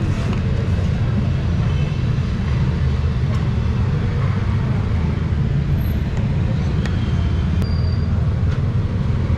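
Steady low street-side rumble, with a few faint clicks and short high tones over it.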